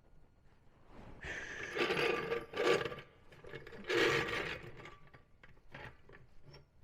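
Metal hand tools working on a car wheel during a tire change: two spells of grinding, squeaking mechanical noise, about a second and then half a second long, followed by a few light clicks.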